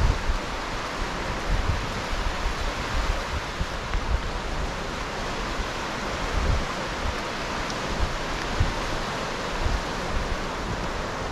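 North Sea surf breaking and washing up a sandy beach, a steady rushing hiss, with wind buffeting the microphone in irregular low gusts.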